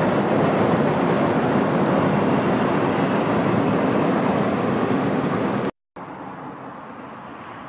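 Container freight train rolling across a girder railway bridge, a loud steady rumble of wheels on rail. It cuts off abruptly about six seconds in, leaving a much quieter outdoor background.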